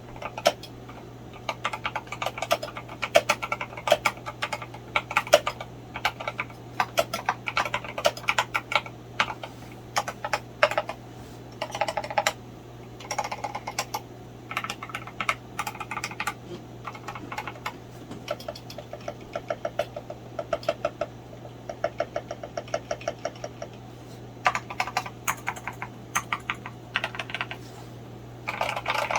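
Typing on a Tester68 mechanical keyboard fitted with linear frankenswitches built from NK Dry Series Yellow and Redragon Red box switch parts with 68 g gold-plated springs. The keystrokes come in quick bursts with short pauses, slowing to a more even run of single strokes partway through. A faint steady hum sits underneath.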